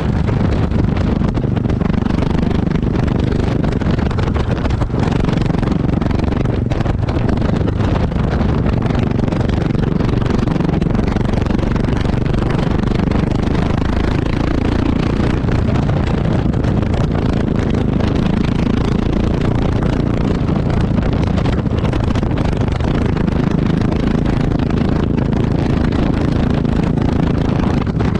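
Yamaha XT660X's single-cylinder four-stroke engine running through its exhaust as the motorcycle rides, with wind noise on the microphone. The engine speed shifts slightly up and down.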